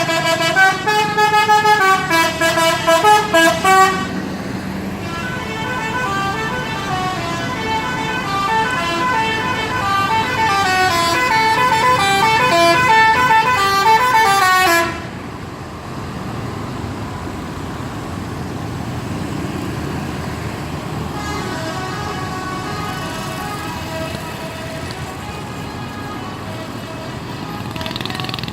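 Bus 'telolet' musical air horn sounding a string of stepped multi-tone notes, fast at first and then in longer melodic runs that rise and fall. It cuts off suddenly about 15 seconds in, leaving quieter vehicle noise with fainter horn tones in the last few seconds.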